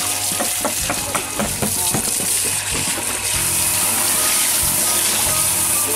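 Water from a rubber hose gushing and splashing over fish in a plastic basket, with background music.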